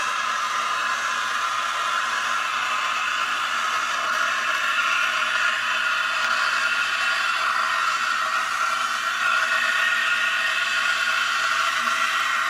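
Starbucks Barista SIN006 espresso machine's steam wand hissing steadily with its tip in cold milk, frothing it by forcing in air and steam. The hiss grows a little louder about halfway through.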